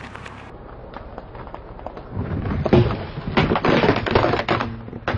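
Car tyre rolling over and crushing objects: a run of crackling and crunching from about two seconds in, with a single sharp knock near the end.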